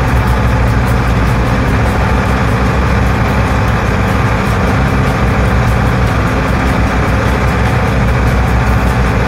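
A motor boat's engine running steadily under way, a loud low drone, with a rush of wind and water over it.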